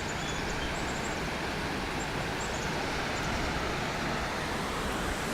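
Steady rush of a waterfall, with a few faint high bird chirps.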